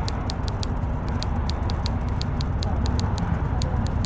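Smartphone keyboard clicks as a message is typed: quick, uneven taps, several a second, over a steady low rumble.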